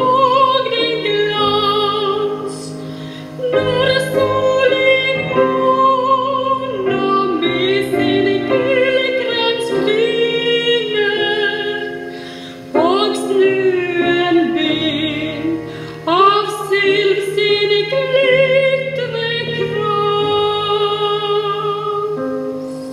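A woman's classical singing voice, with vibrato on long held notes, accompanied by piano: a Norwegian sacred song sung in phrases. It fades out on a final held chord near the end.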